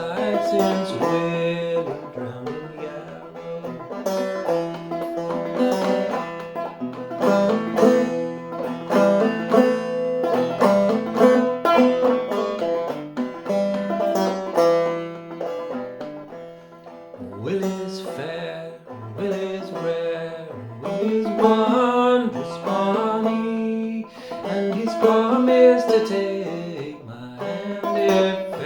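Long-neck five-string banjo played clawhammer style in eBEGB tuning, picking a minor-key melody in quick plucked notes over a steady ringing drone.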